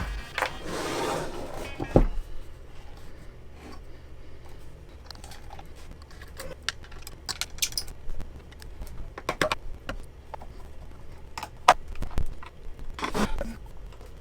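Handling noise of cables and plugs being unplugged and moved: scattered clicks, knocks and light rattles, with a brief rustle in the first second or so, over a steady low hum.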